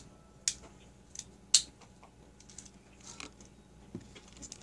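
Sharp plastic-and-metal clicks of a BB pistol being handled and loaded, several separate clicks with the loudest about one and a half seconds in.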